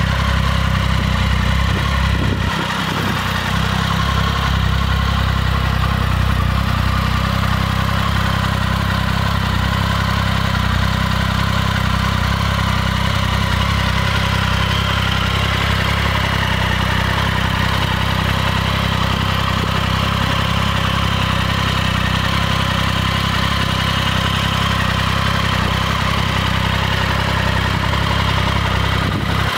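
Triumph Speed Triple 1050's inline three-cylinder engine idling steadily through an Arrow aftermarket exhaust, with a brief dip in the low rumble about two and a half seconds in.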